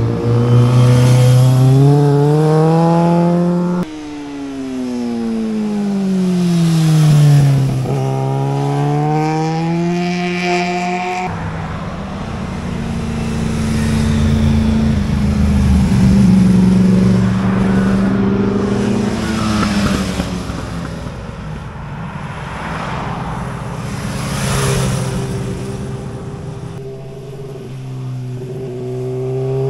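Motorcycle engines accelerating hard through the bends and passing close by, one after another. The engine pitch climbs, drops sharply as a bike goes past, then climbs again through the gears.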